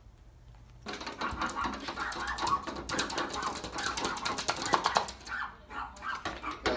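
Paws and claws tapping and scratching rapidly against a glass sliding door, starting about a second in, with some voice-like sound mixed in.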